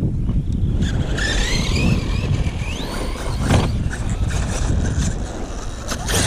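Electric motor of a radio-controlled car whining, its pitch rising and falling as the car speeds up and slows, over heavy wind noise on the microphone; a thump about three and a half seconds in.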